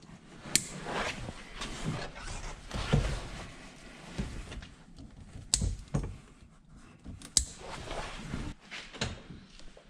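Hands working a wiring harness with zip ties: rustling and scraping of wires and plastic, with a few sharp clicks as ties are fastened and their tails snipped with cutters.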